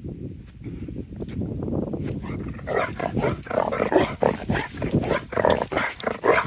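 A dog making rapid, repeated breathy vocal sounds, starting about two and a half seconds in, over a low rumble.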